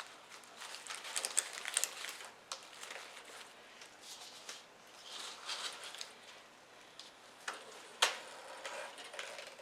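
Stiff artificial fall garland of leaves and picks being handled and pushed into place, giving irregular crackly rustling and small clicks, with one sharp knock about eight seconds in.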